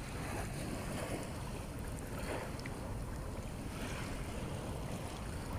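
Wind buffeting the microphone over the wash of sea water, a steady rumbling noise with a few soft swishes.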